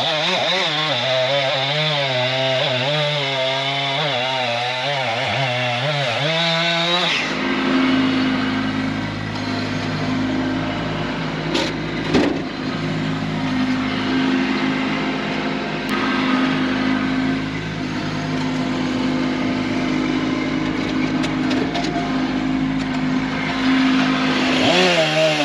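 Chainsaw cutting through an oak log, its engine pitch wavering under load, for about the first seven seconds. The sound then changes abruptly to a steadier, lower engine note with a low rumble, with a single knock about twelve seconds in and the pitch rising again near the end.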